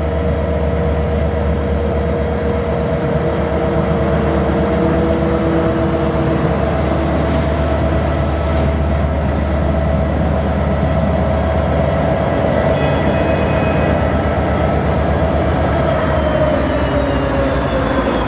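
Aurizon 2300-class diesel-electric locomotives hauling a coal train, approaching and drawing close with a steady low engine rumble and several whining tones. Near the end the whines fall in pitch as the lead locomotive comes alongside.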